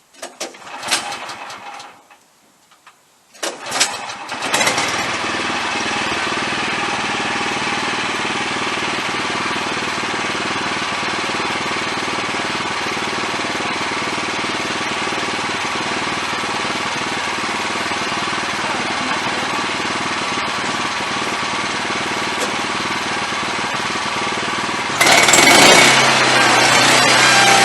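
Wood-Mizer LX25 sawmill's engine being cranked: a brief try, then it catches after about three seconds and runs steadily. About 25 seconds in it turns suddenly louder and rougher, as the mill goes into the next cut.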